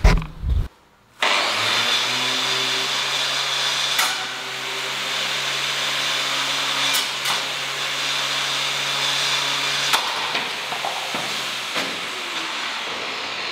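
Angle grinder running steadily at full speed with its cutting disc spinning unguarded, starting about a second in after a brief thump. A few sharp ticks cut through it about 4, 7 and 10 seconds in, and its low hum drops out near the end.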